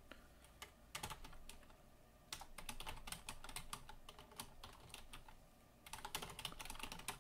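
Faint typing on a computer keyboard: a single keystroke about a second in, then a run of quick keystrokes, a short pause, and more keystrokes near the end.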